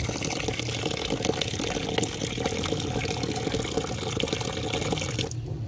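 A steady stream of water pours from a pipe into a metal bucket of bran-and-soy horse feed, soaking it into a wet mash. The flow stops near the end.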